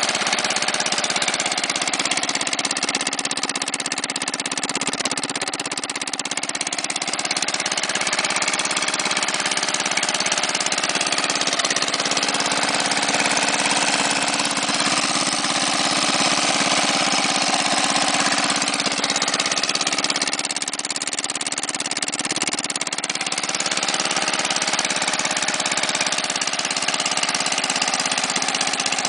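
A 6.5 HP Tecumseh OHV single-cylinder four-stroke engine on a mini bike, idling steadily through a straight pipe. Its level dips slightly a couple of times.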